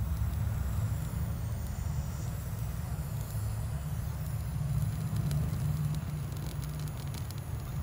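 Handheld butane torch lighter's flame running with a steady low rumble as it burns shimpaku juniper foliage, with a few faint crackles near the end.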